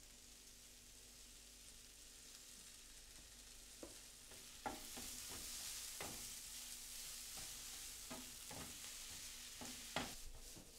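Chicken, peppers and onions sizzling in a frying pan while a wooden spatula stirs them, scraping and knocking against the pan every second or so. The sizzle is faint at first and grows louder about halfway in as the stirring starts.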